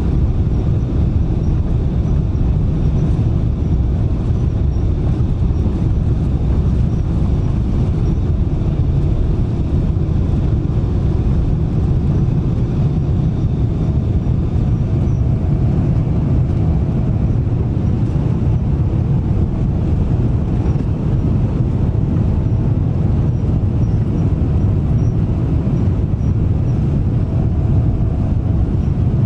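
Boeing 777-300 airliner's engines and airframe making a steady, loud low rumble that does not change.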